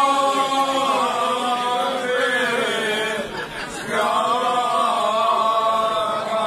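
Men's voices singing a Cretan rizitiko unaccompanied, in long held notes that bend slowly up and down. The sound drops briefly a little past halfway, between phrases, before the next phrase comes in.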